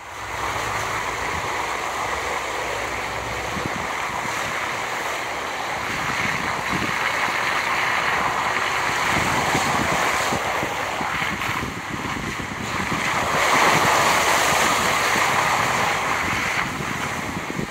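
Off-road tyres of a Toyota 4Runner rolling through shallow water on a gravel wash, a continuous hiss and splash of water thrown off the tread, mixed with wind rushing over the microphone. It swells loudest a little past two-thirds of the way through.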